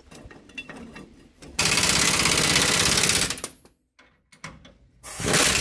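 Impact wrench running nuts onto leaf-spring U-bolts in two rapid rattling bursts: one about a second and a half in, lasting under two seconds, and another starting near the end. Light clicks of nuts and metal being handled come before the first burst.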